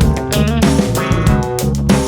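Background music: electric guitar and bass over a drum beat.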